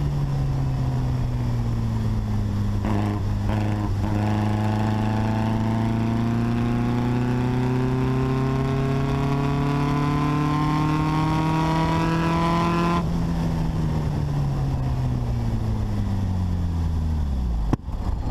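The VW Beetle's 1835cc air-cooled flat-four engine is running under way. Its note climbs slowly for about ten seconds, then goes softer and falls in pitch as the car eases off, with a sudden break near the end.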